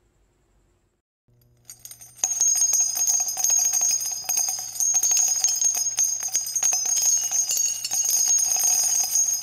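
Outro music jingle of rapidly shaken jingle bells over a low steady tone, starting suddenly about two seconds in after near silence.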